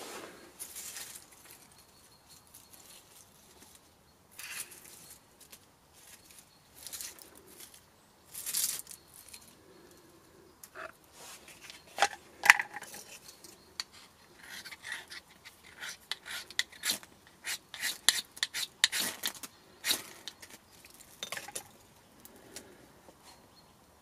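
A knife blade scraping and shaving wood and bark into tinder shavings, in short irregular strokes, with light clicks and rustles as the materials are handled.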